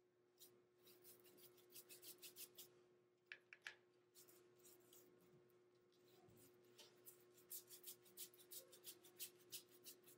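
Paintbrush strokes spreading acrylic paint across paper: faint, quick swishes in irregular runs, coming thicker toward the end, over a faint steady hum.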